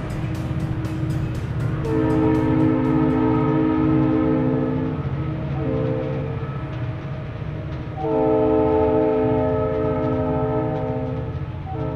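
Recorded train sound effect: a locomotive air horn sounding a long blast about two seconds in, a short one, another long blast about eight seconds in and a fourth starting near the end, over the steady rumble and rhythmic clatter of a moving train.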